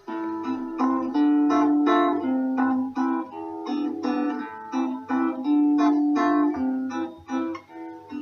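Background music: an acoustic guitar playing a melody of single plucked notes.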